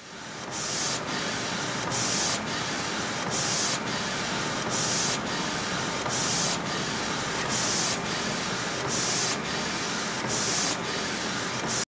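Large-format inkjet printer printing, its print head carriage sweeping back and forth: a steady whir with a brighter hiss that swells about every second and a half. It stops abruptly near the end.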